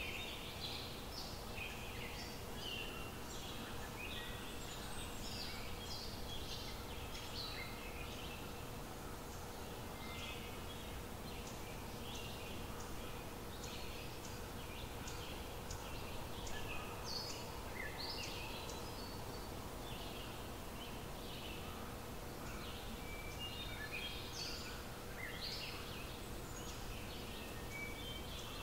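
Small birds chirping and twittering throughout, many short high calls one after another, over a faint steady hum.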